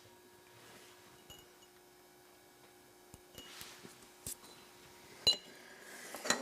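Small watchmaking hand tools handling the parts of a mechanical watch: a few sharp light clicks and clinks, sparse at first and closer together near the end, the loudest about five seconds in.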